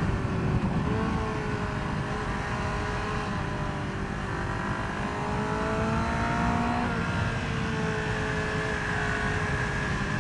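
A vehicle engine accelerating under load. Its pitch climbs slowly for several seconds, drops at a gear change about seven seconds in, then climbs again.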